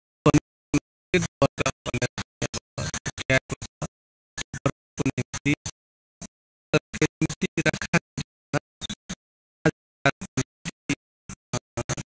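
Broken-up, stuttering audio: dozens of very short fragments of sound, each cut off abruptly, separated by gaps of dead silence at irregular spacing, like a track full of digital dropouts.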